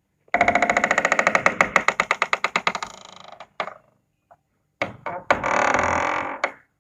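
A door opening: its hinge creaks as a fast run of ticks for about three seconds, then fades. A few single clicks follow, then a second, smoother creak that stops suddenly.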